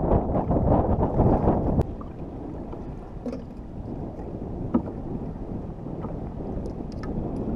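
Wind buffeting the microphone on a bass boat on choppy open water. The rumble drops sharply about two seconds in, after a click, and a few light knocks follow.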